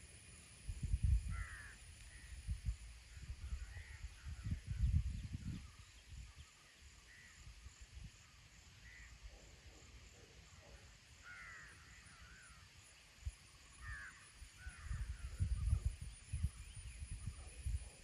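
Crows cawing every few seconds, short harsh calls, while gusts of wind rumble on the microphone, loudest during the first few seconds and again near the end.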